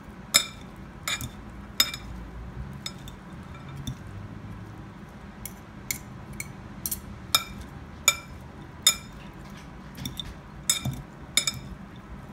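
A metal fork clinking against a glass mixing bowl while a salad is tossed: sharp, ringing clinks at an irregular pace, roughly one or two a second.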